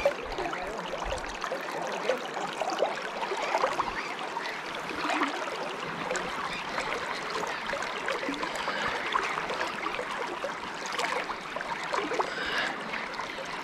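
River water running steadily, an even babble of flowing current.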